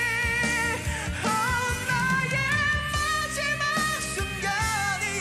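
A male singer belting long, high held notes with vibrato over rock band backing with drums.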